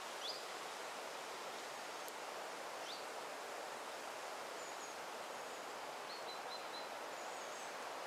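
Steady outdoor background hiss with a few faint, high bird calls over it: two short rising chirps in the first three seconds, then scattered brief high notes and a quick run of four short notes in the second half.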